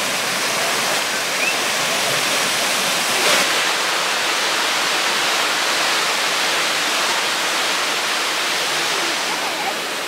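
Waterfall and its cascading stream rushing steadily, an even hiss of falling water.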